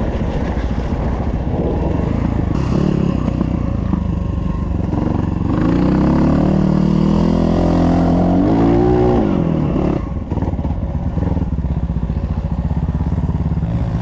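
Dirt bike engine revving hard under load on a hill climb over another engine's steady running. The revs climb in pitch through the middle, peak, then fall away quickly, with a brief drop in loudness about ten seconds in.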